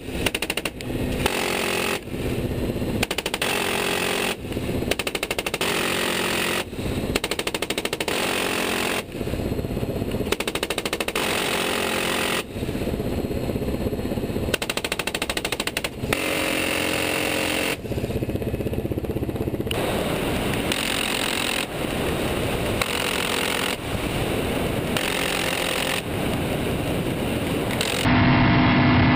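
M134 7.62 mm six-barrel minigun firing from a helicopter door in repeated short bursts, each a rapid continuous ripping buzz lasting about a second. Steady helicopter engine and rotor noise is heard between the bursts inside the cabin.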